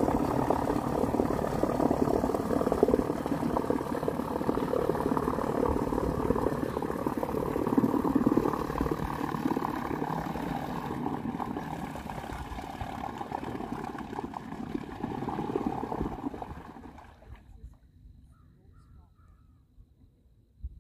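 A motor running steadily, then fading away over about a second near the end as the craft moves off.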